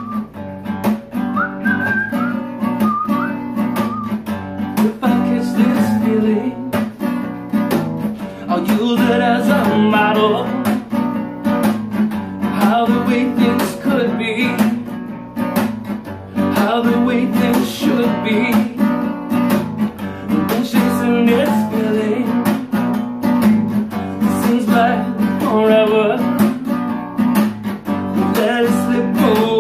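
Acoustic guitar strummed and picked steadily, with a whistled tune wavering over it for the first few seconds.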